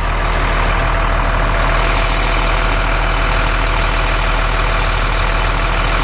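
Caterpillar C7 7.2-litre inline-six turbo diesel idling steadily, heard close up in the engine bay.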